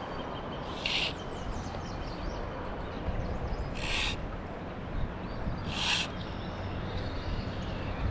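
Fast river water rushing steadily, with three short, high, hissy bursts about a second, four seconds and six seconds in.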